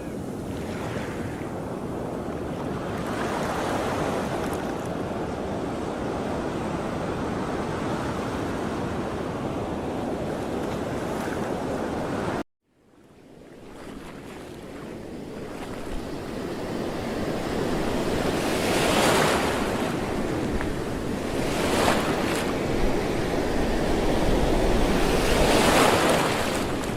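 Wind and water noise: a steady rushing hiss of wind and waves, with gusts swelling several times in the second half. About halfway through it cuts out abruptly and fades back in.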